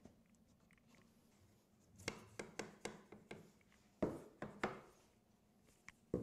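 Rubber mallet tapping a glued-up cherry table frame to seat its joints. A quick run of about six light taps comes about two seconds in, then three louder blows a second later, and one more near the end.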